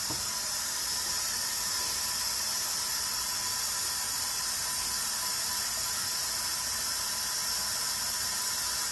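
A steady high hiss with a faint whine under it, which cuts off suddenly near the end.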